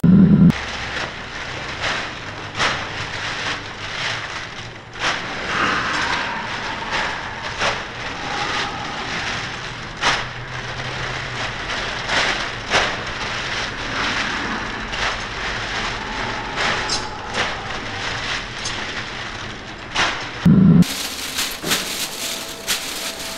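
Thin plastic bags rustling and crinkling as they are wrapped around a pair of feet, a dense irregular crackle. A short loud low thud right at the start and another about 21 s in.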